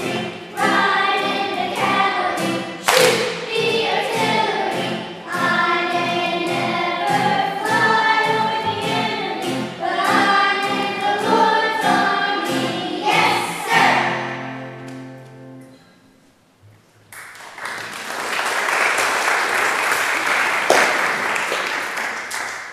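Children's choir singing with accompaniment. The song ends on a held final chord that fades out about two-thirds of the way in, and the audience then applauds.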